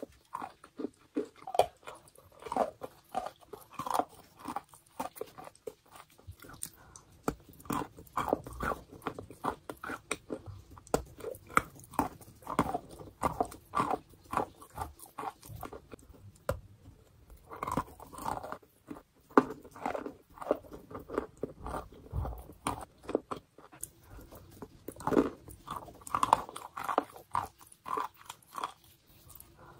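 A person biting and chewing chalk: a continuous, irregular run of short, crisp crunches as the chalk breaks up in the mouth, with a few brief lulls.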